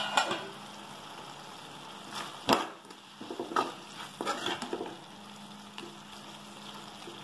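Metal ladle stirring and scraping a thick bottle gourd and dal curry in a metal kadai, knocking now and then against the pan, over a steady low sizzle. The loudest knock comes about two and a half seconds in.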